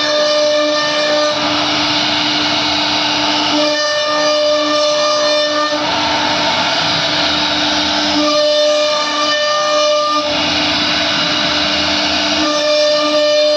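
CNC router spindle whining steadily while carving. A higher, layered whine swells in and fades out in stretches of about two seconds, roughly every four seconds.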